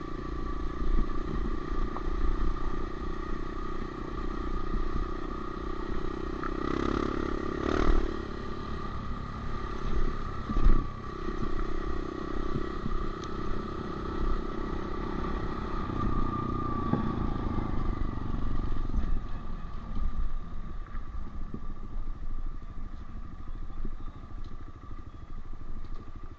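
Honda CRF125F four-stroke single-cylinder dirt bike engine running under way, with a few sharp clattering knocks about a third of the way in; the engine note eases off after about two-thirds.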